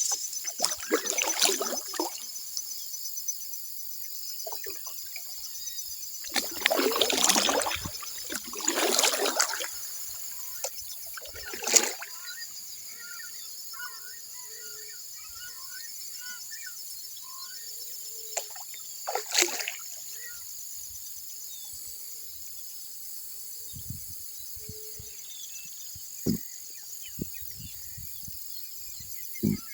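Kayak paddle strokes splashing and dripping in the water, several in the first twenty seconds, over a steady high-pitched insect drone and scattered bird chirps and calls. A few short low knocks near the end.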